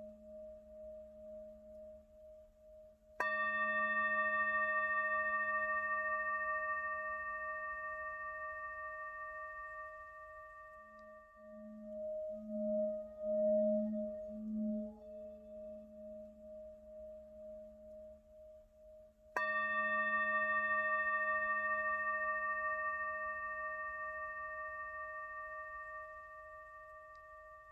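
Singing bowl struck twice, about sixteen seconds apart; each strike rings out as a bright chord of tones that fades slowly. Between the strikes a low hum lingers and pulses.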